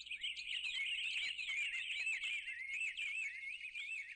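A chorus of small birds chirping and twittering: many overlapping quick warbling calls, all thin and high with no low end, fairly faint and continuous.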